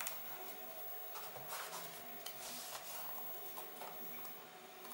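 Faint rustling of fingers rubbing and pressing cross-stitch canvas as it is stretched onto double-sided tape on a backing board, a little louder in the middle.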